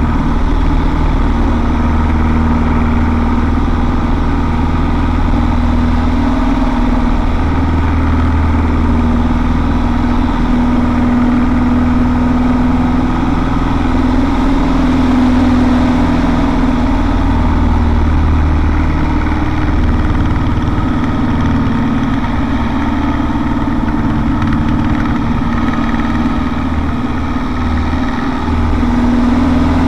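Mudry CAP 10C's four-cylinder Lycoming engine and propeller heard from inside the cockpit, running loud and steady. The engine note drifts up and down through the manoeuvres and dips briefly near the end before picking up again.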